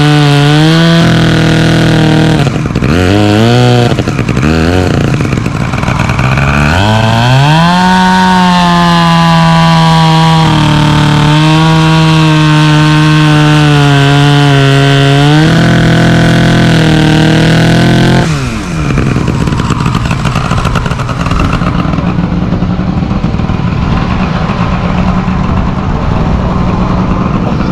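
Vintage Disston chainsaw powered by a Mercury outboard engine converted to air cooling, running loud with its pitch wavering, rising and settling as it is revved. The engine note falls and stops about two-thirds of the way through, and a lower, rougher running sound carries on after it.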